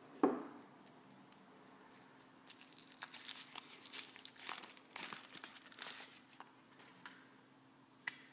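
A thump just after the start, then the thin foil wrapper of a chocolate surprise egg crinkling and tearing in quick bursts as it is peeled off by hand. Near the end comes a single sharp crack as the chocolate shell is split.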